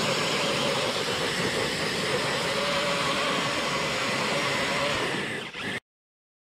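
Electric RC rock crawlers' motors and gear drives whining steadily as they climb a dirt slope. The sound cuts off abruptly near the end.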